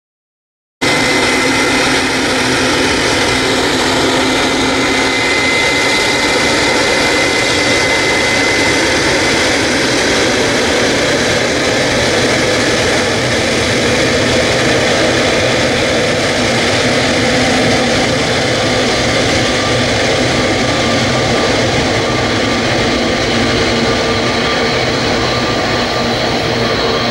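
Boeing 777's twin jet engines running at low taxi power: a steady whine with a few held tones over a broad rumble, which begins after a short silent gap at the start.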